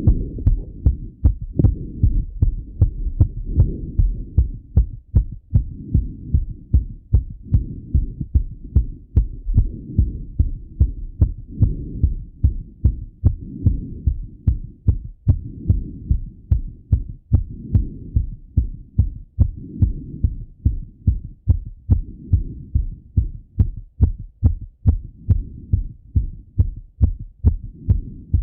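A man's heartbeat heard through a Littmann stethoscope, fast and thumping after a run. It beats steadily and regularly, each beat a heavy low thud with a sharp click.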